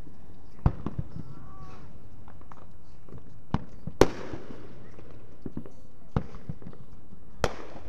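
Fireworks going off: about six sharp bangs spread across a few seconds. The loudest comes about four seconds in and trails off after it.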